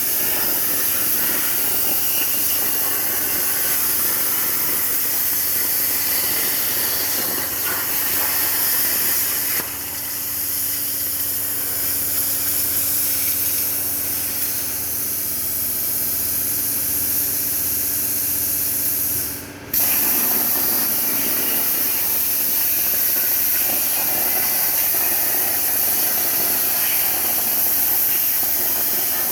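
CNC plasma cutter torch hissing steadily as it cuts, dipping briefly about ten seconds in and cutting out for a moment about twenty seconds in before carrying on.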